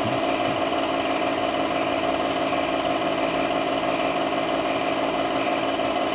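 8mm film projector running: a steady, unchanging mechanical hum from its motor and film drive.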